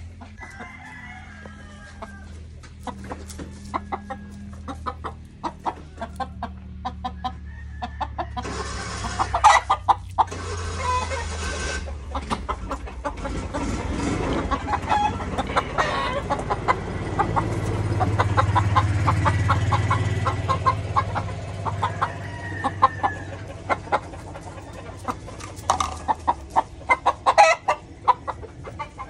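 Chickens clucking in a run of short repeated calls, with a rooster crowing among them, over a low steady hum.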